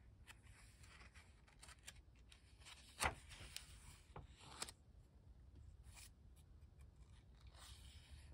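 A paper page of a small Pentalic 4x6 sketchbook being turned by hand: faint rustling, with a sharp flap of the page about three seconds in and a softer one a second and a half later.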